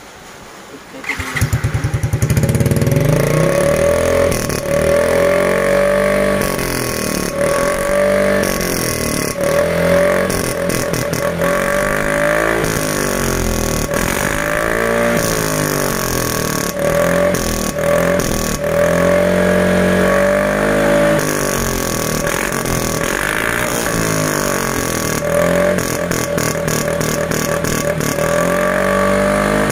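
Yamaha Mio M3 scooter's 125 cc single-cylinder four-stroke engine starting about a second in, then revved again and again, its pitch rising and falling with each blip. It is the first sound test of a freshly made hollowed-out (bobokan) aftermarket muffler, built to give the loud 'MP7 listrik' exhaust note.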